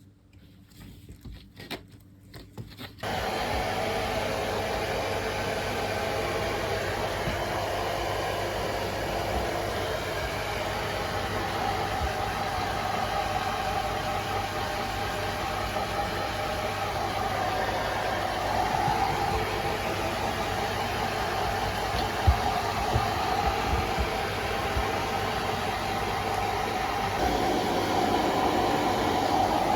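A hair dryer switched on about three seconds in and running steadily.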